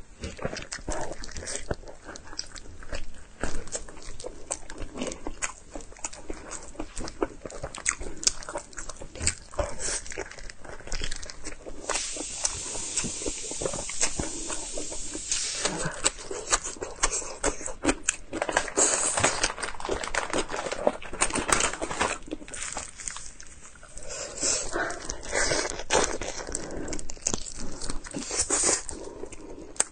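A person chewing and biting into fatty pork: wet smacking mouth sounds with many short crunches and clicks.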